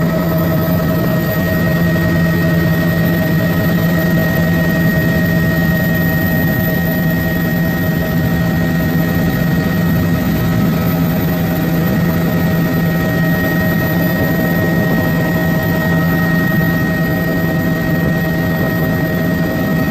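Helicopter in flight, heard from inside the cabin: a loud, steady drone of engine and rotors with a constant high whine above it.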